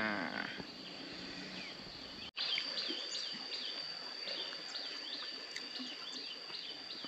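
Countryside ambience: a steady high-pitched insect drone with short chirps repeating about twice a second. It starts abruptly about two seconds in.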